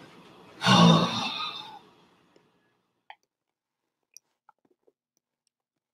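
A man's heavy sigh about a second in, fading out, followed by a few faint small clicks.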